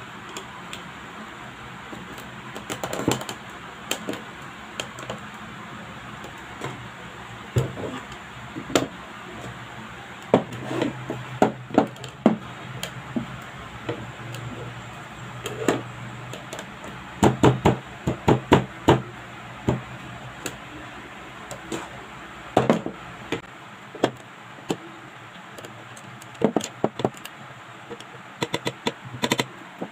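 Light wooden knocks, taps and clicks as the pieces of a flat-pack wooden stand are slotted together and handled on a desk, coming in irregular clusters.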